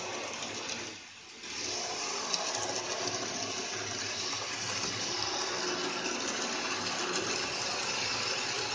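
N-gauge model steam locomotive and coach running past on the track, a steady whirring rush of the small motor and wheels on rail. It dips briefly about a second in.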